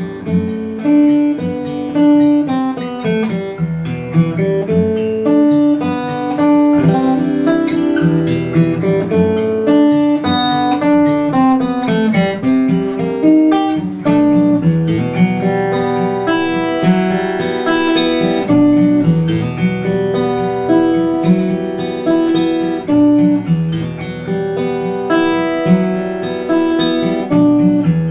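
Solo acoustic guitar playing an instrumental introduction: a picked melody moving over bass notes, at a steady even level.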